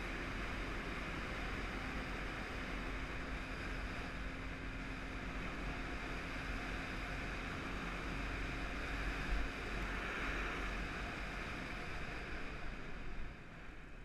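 Wind rushing over the microphone on a moving Jawa 638 motorcycle, with its two-stroke twin engine running faintly underneath. The sound drops off sharply near the end.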